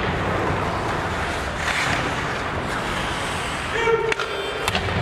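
Ice hockey play: skate blades scraping and hissing on the ice, with sharp clacks of sticks and puck. A brief shout about four seconds in.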